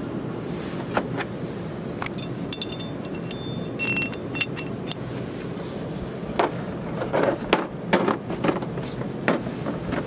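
Steel parts of a disc brake caliper piston spreader tool clinking and tapping together as they are handled and fitted, with brief metallic ringing between about two and five seconds in and a cluster of sharper knocks near the end, over a steady low background noise.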